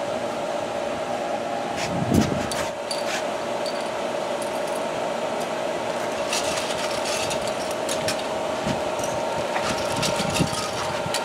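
A plastic parts bag crinkling and rustling in short spells, with a few light plastic clicks, over a steady machine hum.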